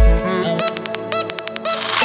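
Electronic background music: a deep falling bass boom right at the start, a quick stuttering run of clicks in the middle, and a rising rush of noise near the end over steady synth tones.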